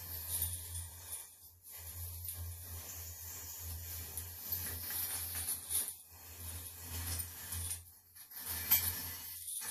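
Interlinked fired ceramic rings of a chain-mail-like sculpture clinking and rattling against one another as it is lifted and unfolded, many small overlapping clinks with a few short pauses, over a low steady hum.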